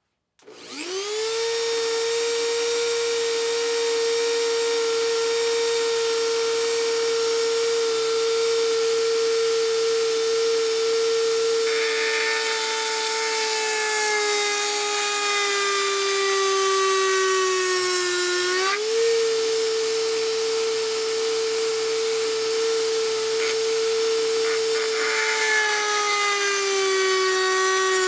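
Dremel 4000 rotary tool switched on about half a second in, spinning up to a steady high whine with a blue barrel-shaped grinding stone. About halfway through, the stone grinds the steel tip of an old screwdriver, adding a hiss while the pitch sags under the load. The pitch jumps back up when it is lifted off, then sags again as grinding resumes near the end.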